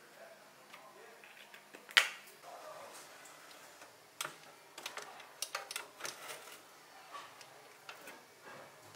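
A sharp knock about two seconds in, then a run of light clicks and clinks as a metal baking tray is handled and put into a small oven.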